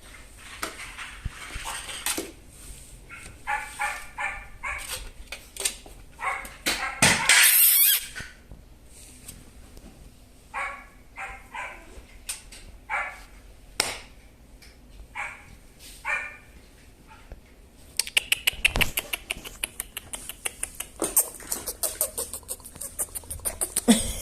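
Two-month-old husky–aspin mix puppies giving short, high yips and whines in scattered bursts. A loud rustling burst comes about seven seconds in, and a fast run of clicks and taps fills the last quarter.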